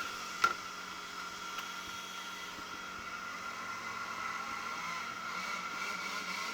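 Radio-controlled racing boats' motors whining steadily out on the water, one steady high tone over a haze, with a single sharp click about half a second in.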